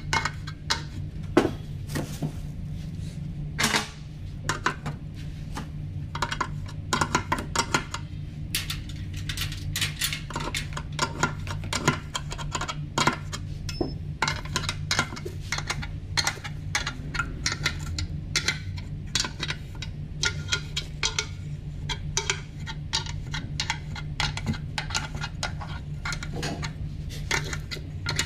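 Small metal parts clicking and clinking, irregular and near-constant, as clamps on an RB26 intake manifold's pipe are worked with a hand tool. A steady low hum runs underneath.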